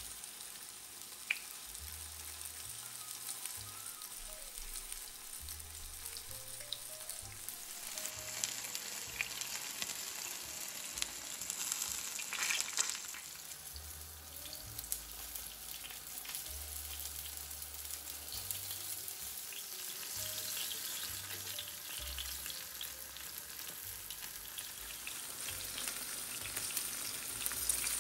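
Tapioca-starch-coated firm tofu cubes shallow-frying in oil in a nonstick pan: a steady sizzle, with a few light clicks.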